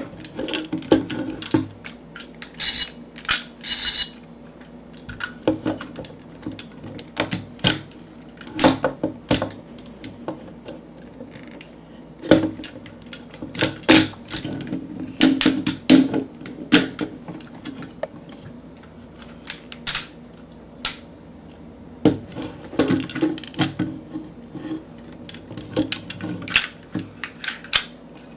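Plastic Transformers Energon Ironhide toy being transformed by hand: many irregular sharp clicks and snaps of its plastic parts being moved and set into place, coming in scattered clusters.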